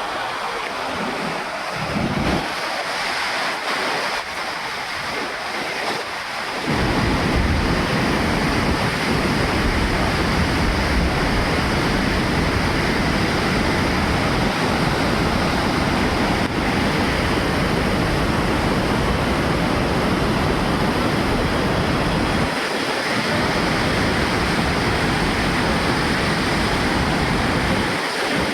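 Swollen river in flood, its fast water rushing as a steady noise, with wind buffeting the microphone from about a quarter of the way in, briefly easing near the end.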